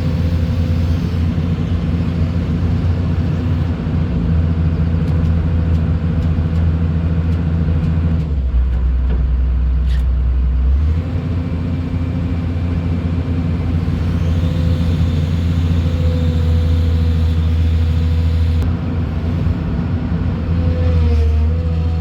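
An engine running steadily. Its speed drops for a couple of seconds about nine seconds in, then picks up again.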